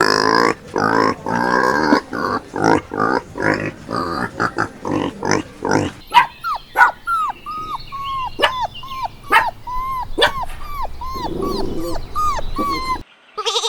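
Farm animals calling, with no narration. For about six seconds there are dense, loud calls, then a run of short chirping calls repeated about twice a second that stops about a second before the end.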